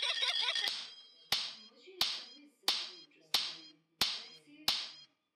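A ball being batted back and forth by hand, heard as six sharp slaps at an even pace, about one every two-thirds of a second, each dying away quickly. Music with a high melody cuts off in the first second.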